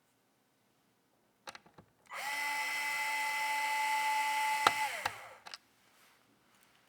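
Small electric screwdriver running at a steady speed for about two and a half seconds, a constant motor whine that ends with a sharp click and winds down, with a few handling clicks before and after.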